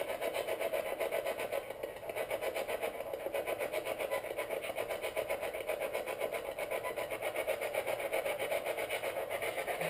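Ghost box radio sweeping through stations: steady choppy static broken into a rapid, even pulse, listened to for a spoken answer.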